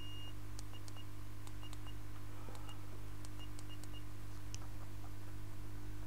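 Steady low electrical hum with about a dozen short, high beeps scattered through, the first one longer, and a few faint ticks.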